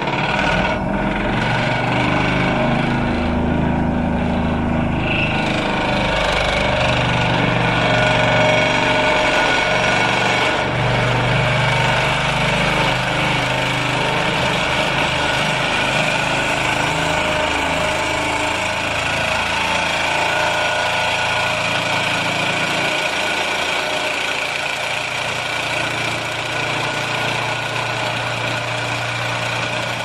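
Excavator-mounted vibratory pile hammer driving steel sheet piles into hard ground: a loud, steady mechanical drone with the excavator's diesel engine running under load, and a higher whine that sets in about five seconds in.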